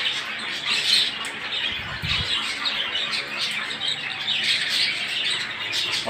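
Many caged budgerigars chattering and squawking together, a steady mass of overlapping chirps and squawks.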